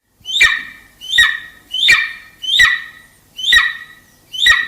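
A bird squawking, six harsh calls in steady succession, each starting sharply and falling in pitch.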